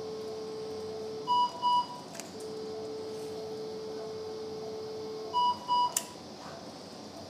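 Electrosurgical unit's activation tone: a steady mid-pitched tone held for a few seconds while the electrocautery pencil is used on tissue, sounding twice. Each time it is followed by a pair of short, louder, higher-pitched beeps from the surgical equipment, and a sharp click comes near the end.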